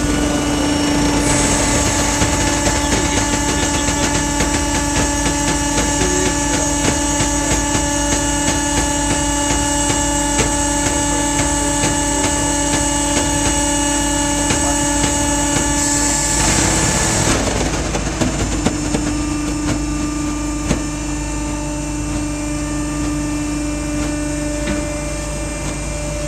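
V500 mill-size waste baler running, its hydraulic power unit giving a steady hum with a high hiss over it. About seventeen seconds in the hiss cuts off and the hum dips briefly, then the hum runs on steadily.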